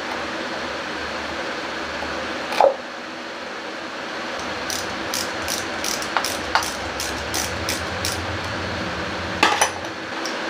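Light clicks and taps of tools and parts being handled on top of an engine: a sharp click a few seconds in, a run of about a dozen quick clicks in the middle, and a louder knock near the end, over a steady fan hum.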